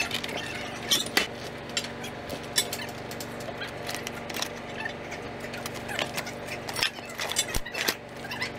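Steady hum of ship machinery, with scattered sharp clicks and clinks of metal being handled.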